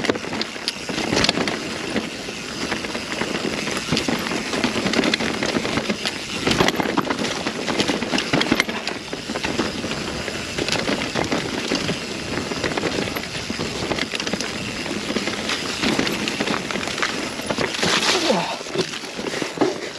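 Mountain bike being ridden downhill over a rough trail: a continuous rush of tyres on dirt and rock, with the bike rattling and knocking over bumps.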